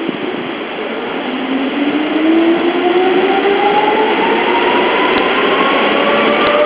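Seibu 3000 series electric train pulling away: its traction motors whine, rising steadily in pitch from about a second in as it accelerates, over the steady rumble of its wheels on the rails.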